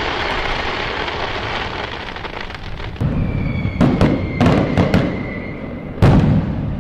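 Fireworks going off: a dense crackle that fades over the first three seconds, then a run of sharp bangs from about three seconds in, with a high whistle held for about three seconds, and another loud bang near the end.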